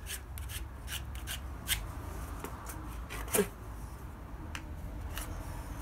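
Small plastic spreader scraping and smoothing two-part filler into a painted wooden post: a string of short, uneven scrapes and clicks as the filler is worked flat.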